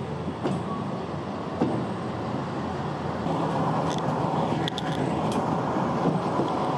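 Diesel track motor car running as it slowly tows a herbicide sprayer car along the rails, its engine and wheel noise growing louder from about three seconds in. A few short, high squeaks come near the middle.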